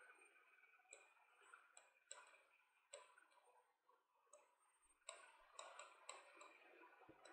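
Near silence broken by faint, irregular ticks and short scratches of a marker writing on a board.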